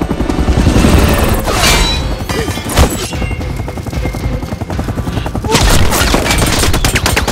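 Layered action-film sound effects over a dramatic score: a helicopter sweeps past, a heavy thump comes about three seconds in, and near the end rapid gunfire hits a concrete rooftop, bullets kicking up dust.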